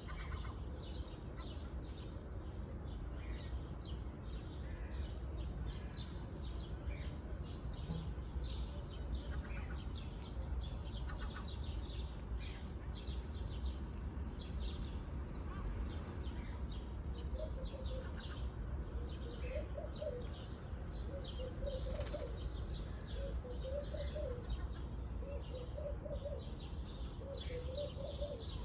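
Pet parrot chirping in rapid short high calls, with a lower warbling call repeating every second or two from about halfway through.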